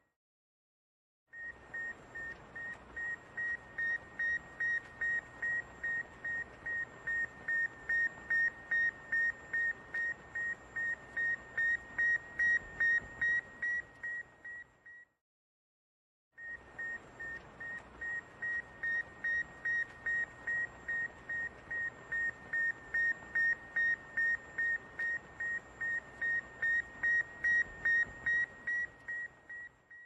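Satellite-in-orbit sound effect: a high beep pulsing about two and a half times a second over radio hiss. It swells and fades in two long sequences, with a silence of about a second and a half between them.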